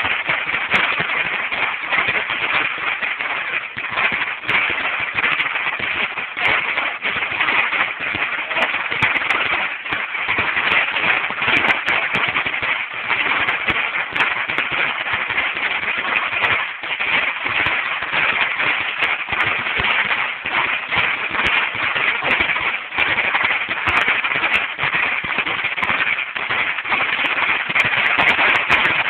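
A Dominator 16,000-count firecracker strip going off: a dense stream of rapid pops, too many to count, that blur into one continuous crackling rattle.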